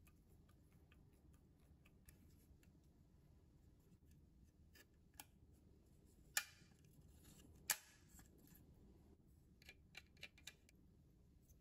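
Small plastic parts of a projector kit clicking and snapping as they are fitted together by hand. There are two sharp snaps a little past the middle, about a second apart, then a quick run of light clicks.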